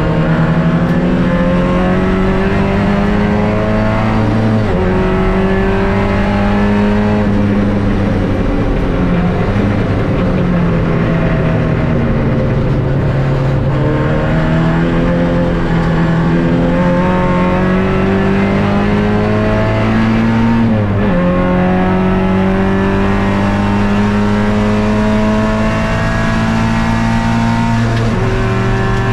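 MG B Roadster race car's 1.8-litre B-series four-cylinder engine heard from on board at racing speed. The engine note climbs steadily under acceleration, with several sudden drops in pitch at gear changes and slower falls as it comes off the throttle.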